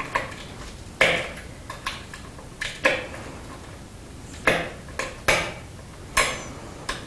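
Pressure flaking of glass with a copper-tipped pressure tool on a wooden anvil: about half a dozen sharp, glassy clicks at irregular intervals as small flakes snap off the edge.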